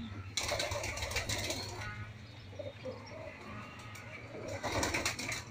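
Domestic pigeons cooing softly over a steady low hum. Two louder bursts of rustling come about half a second in and near the end.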